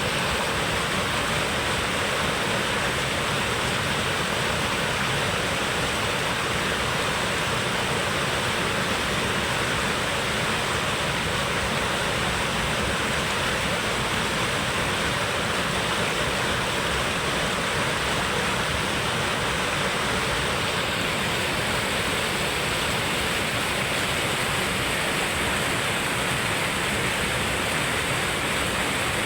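Waterfall on a river, water pouring and rushing in a steady, unbroken roar.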